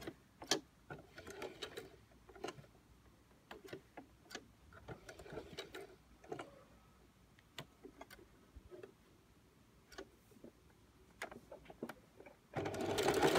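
Singer Heavy Duty 4432 sewing machine with a walking foot, stitching leather slowly by hand-turned handwheel around a curve: scattered, irregular clicks and knocks of the needle and feed mechanism. Near the end, the motor starts and the machine runs fast and loud.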